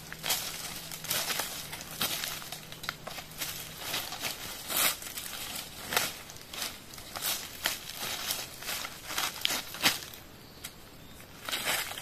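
Dry leaf litter crunching and crackling under footsteps and shuffling, in an irregular run of short crackles.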